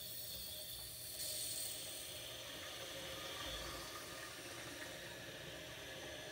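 Toilet tank filling: water hisses steadily through the supply line and fill valve, getting louder about a second in as the shut-off valve under the tank is opened further.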